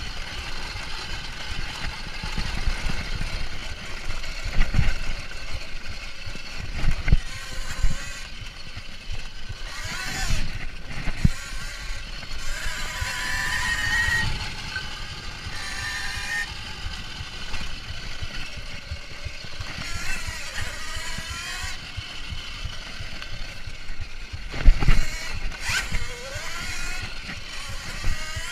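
Kuberg Ranger electric trail bike ridden fast over a rough forest track: the motor's whine glides up and down with speed over a deep rumble and scattered knocks from the tyres and suspension, with wind on the microphone. The loudest knock comes a few seconds before the end.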